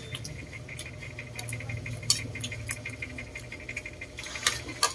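Eating sounds: a metal spoon clicking a few times against a plate, with chewing, over a low steady hum.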